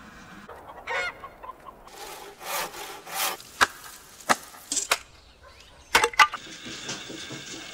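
Wood being chopped with an axe: two rasping strokes, then three sharp chops about half a second apart, then two quick knocks close together near the end as a hatchet splits small pieces of wood.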